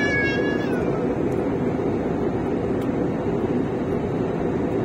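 Steady roar of airliner cabin noise in flight, engine and airflow sound with no breaks. A short high-pitched sound gliding down in pitch fades out within the first second.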